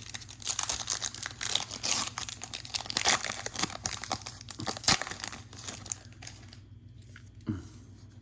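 Foil trading-card pack wrapper being torn open and crinkled, a dense crackling with sharp crinkles for about six seconds, then dying down.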